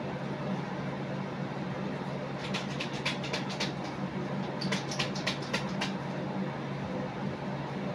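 A steady low hum, with two runs of quick, sharp clicks in the middle, about six a second, each run lasting just over a second.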